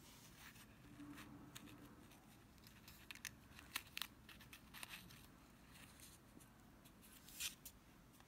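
Faint crinkling and rustling of a paper sewing-needle packet handled by fingers, with scattered small ticks and a brief louder rustle near the end as a needle is drawn out of the paper.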